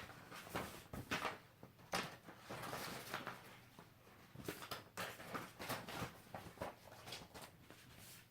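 Vinyl record packaging being handled: a click, then a series of short rustles and scrapes, with a longer rustle about three seconds in.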